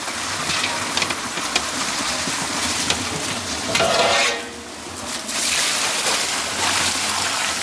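Food sizzling and crackling in hot oil, a dense steady hiss full of small pops that eases off briefly about four and a half seconds in and then comes back.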